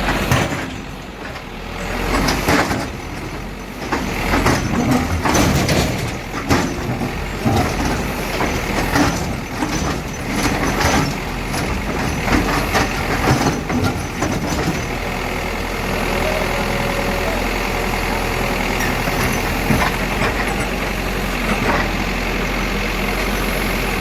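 Heavy earthmoving machine's diesel engine running, with many clanks and knocks over roughly the first fifteen seconds, then running more steadily.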